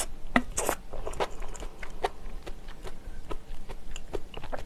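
Close-miked eating: chewing of broth-soaked rice with irregular wet mouth clicks and smacks, and a wooden spoon scooping in a ceramic bowl.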